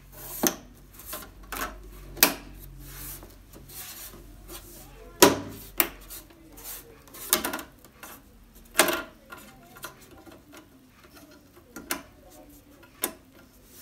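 Plastic front bezel of a TCL LED TV being pressed and snapped onto the panel: scattered sharp clicks and knocks with some rubbing of plastic, the loudest about five and nine seconds in.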